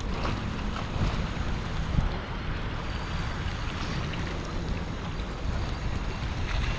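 Steady wind rumble on the microphone, with water washing against a rocky shore.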